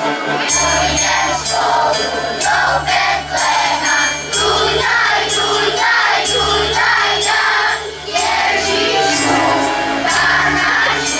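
Children's choir singing together over an amplified musical accompaniment with a bass line and a steady beat.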